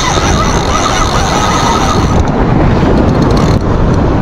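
Steady wind buffeting the microphone, a loud rumbling rush, with a faint wavering whine running through it.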